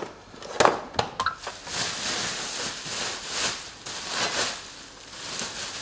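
Bubble wrap and a plastic packaging bag rustling and crinkling as parts are unwrapped, in uneven swells, after a single sharp click about half a second in.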